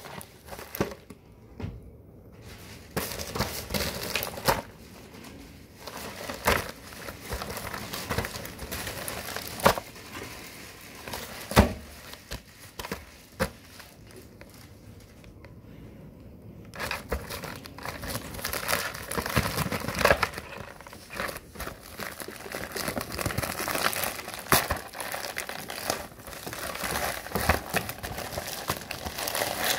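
Yellow padded mailing envelope being handled and torn open, crinkling and rustling with scattered sharp crackles. The crinkling grows busier and louder in the second half.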